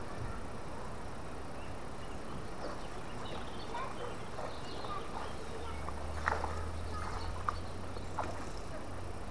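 Outdoor ambience: a steady hiss with scattered short bird chirps and a few sharp knocks between about six and eight seconds in. A low hum comes in about halfway.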